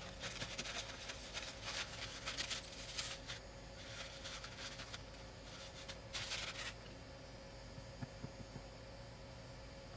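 Paper towel rubbing over an iPad's frame to wipe off old adhesive: quick scrubbing strokes for the first few seconds, one more short scrub near the middle, then only a steady low hum.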